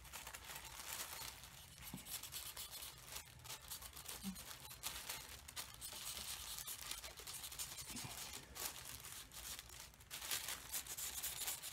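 Charcoal pencil scratching across tissue paper while tracing an outline, with the tissue crinkling and rustling under the hands; faint.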